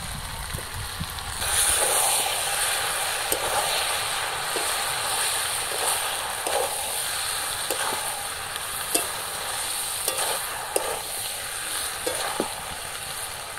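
Jackfruit, mutton kidney and spice paste frying and sizzling in oil in a metal wok over a wood fire, stirred with a metal spatula that clicks and scrapes against the pan. The sizzle grows louder about a second and a half in.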